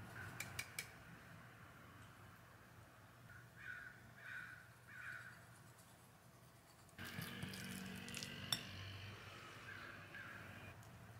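A wire whisk stirring cake flour into wet chiffon batter in a glass bowl, heard softly. There are a few light clinks at the start, then from about seven seconds a steady scraping and clinking of the whisk against the glass. Three short squeaky calls, about a second apart, sound near the middle.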